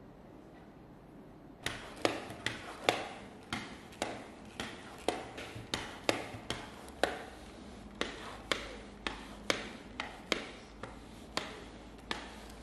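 Reusable pet-hair roller brushed back and forth over a fabric sofa cushion: a quick series of sharp clicking strokes, about two a second, starting abruptly a couple of seconds in.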